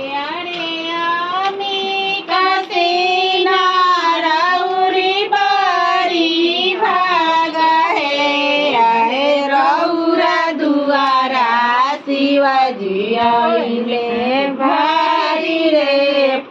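A woman singing a melodic song, with pitch that glides and long held notes.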